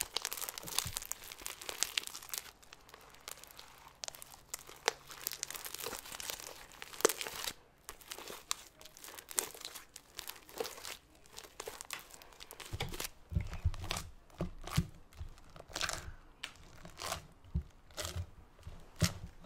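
Pink cloud slime, made with instant snow, being stretched and squeezed by hand close to the microphone: an irregular run of crackles and sticky tearing pops. From about two-thirds of the way in, dull low thumps join as the slime is pressed down in a glass bowl.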